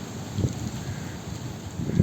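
Wind buffeting the microphone outdoors: an uneven low rumble in gusts, with a stronger gust about half a second in and another near the end.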